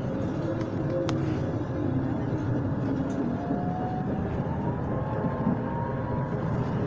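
Tram running on its rails, heard from inside the car: a steady rumble of wheels and running gear, with a faint whine that rises in pitch about halfway through.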